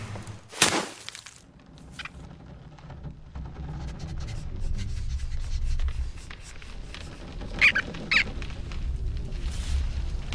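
Cartoon foley: a sharp thwack from a shot arrow about a second in, then a low rumble that slowly builds, and two short high squeaks from the cartoon rodents about eight seconds in.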